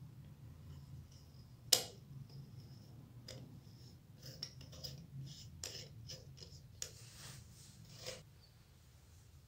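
Small metal clicks and scrapes of a CCTV camera's metal housing as its front bezel ring is fitted onto the body: one sharp click nearly two seconds in, then a run of lighter clicks and scrapes that stops about eight seconds in.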